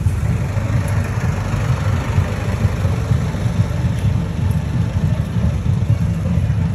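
Wind buffeting the phone's microphone outdoors: a steady, loud low rumble.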